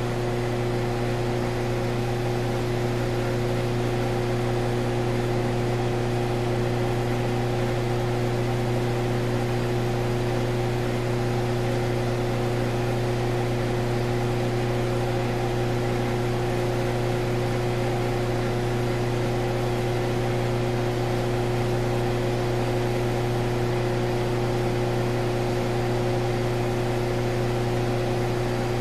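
Hydroelectric power plant turbine running steadily: an unchanging deep hum with several constant higher tones over an even hiss.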